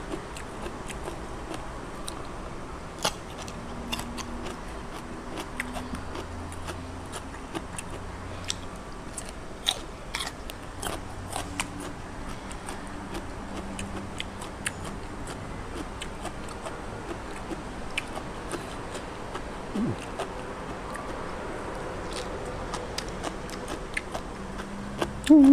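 Close-up eating sounds: a person chewing raw shrimp and fresh vegetables, with many short, irregular wet clicks and crunches of the mouth.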